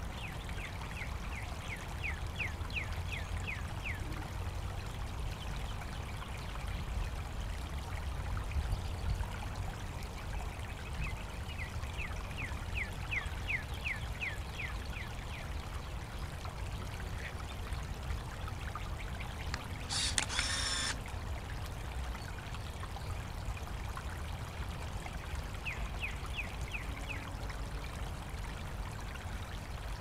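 Shallow water trickling and flowing steadily. Three times, a run of rapid high chirps sounds over it, and about two-thirds of the way in a loud, sharp burst lasts about a second.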